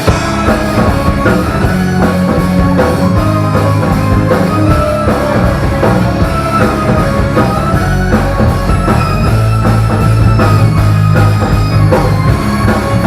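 Rock band playing the instrumental intro of a song, with drum kit, bass and guitar, steady and loud.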